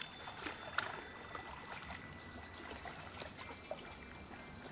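Faint water sounds at the surface: gentle splashing and trickling with scattered small clicks. A thin steady high tone runs through most of it, and a quick run of faint high ticks comes about a second and a half in.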